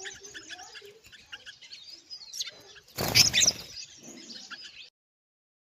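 Many small birds chirping and twittering over one another, with a loud rustling burst about three seconds in. The sound stops abruptly near the end.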